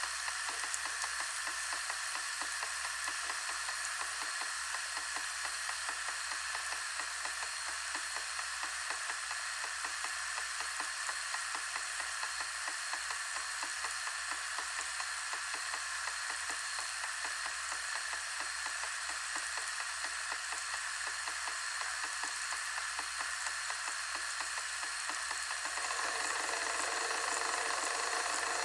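Digital audio tape (DAT) recorder running, giving a steady hiss with fine crackling static, a thin high whine and a low hum beneath. About 26 seconds in, a lower mechanical whirring joins and the sound gets a little louder.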